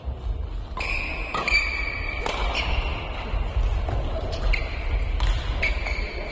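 Badminton rally: about six sharp racket-on-shuttlecock hits and short high shoe squeaks on the court floor, over a low rumble that starts and stops with the window.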